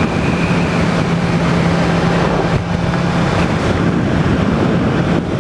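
Yamaha MT-10's crossplane inline-four engine running steadily at cruising speed, with heavy wind rush on the microphone. The steady engine note weakens a little past halfway.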